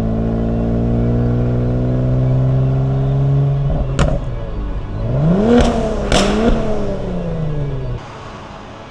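Exhaust of a tuned 2019 Kia Stinger GT2's twin-turbo V6 through an MBRP cat-back, heard from outside the car: a steady drone under throttle, a sharp pop about four seconds in, then the revs rise and fall with two more sharp cracks. The sound cuts off near the end.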